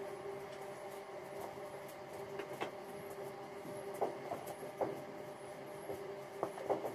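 Stiff dandy brush flicking over a horse's coat: short, irregular scratchy strokes over a faint steady hum.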